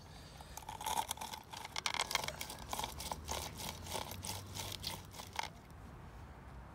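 Irregular crinkling and crackling clicks, a quick uneven run that stops about five and a half seconds in.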